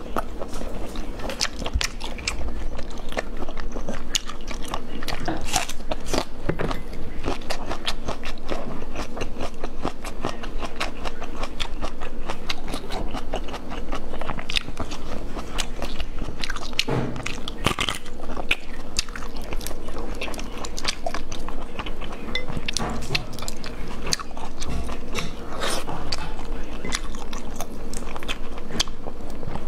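Close-miked mouth sounds of eating snails in chili sauce: sucking the meat from the shells and wet chewing, with many small clicks and smacks.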